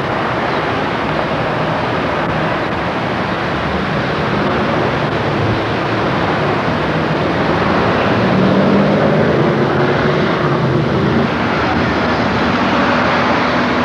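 Car engines running amid a steady rush of outdoor noise, with a low engine drone growing louder about eight seconds in.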